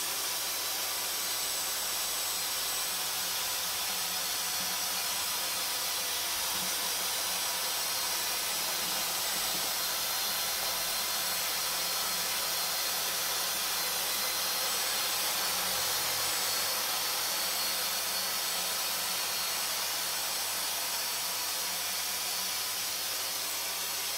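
Dyson DC44 cordless stick vacuum running steadily as it vacuums ground-in dirt from carpet, an even rushing noise that cuts off abruptly at the end when it is switched off.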